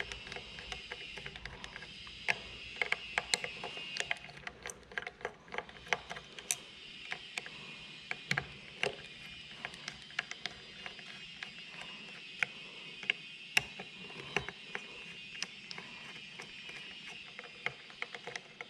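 Phillips screwdriver undoing the small screws inside a plastic CCTV bullet camera housing: many light, irregular clicks and ticks as the tip seats and turns in the screw heads.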